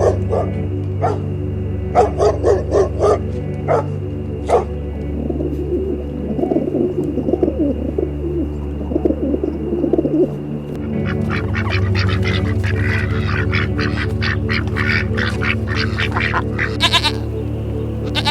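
Animal calls, sounding like waterfowl or other birds, over steady background music: short separate calls in the first few seconds, a warbling run in the middle, then a rapid, dense series of calls near the end.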